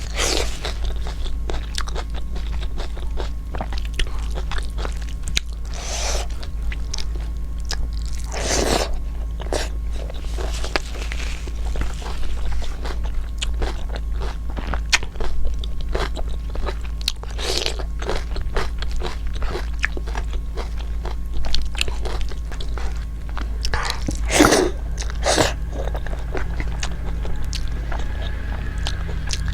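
A person chewing and biting food close to the microphone: wet, crunchy mouth sounds with frequent small clicks and a few louder bites, over a steady low hum.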